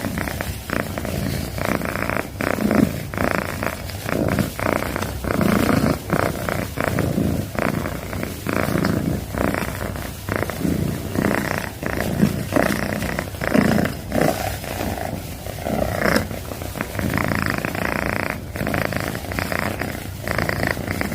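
Domestic cat purring loudly and continuously, the purr swelling and easing about once a second as the cat breathes in and out.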